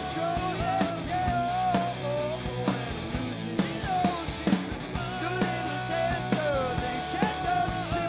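Rock band playing live: electric guitar, bass guitar and drum kit, with a steady beat.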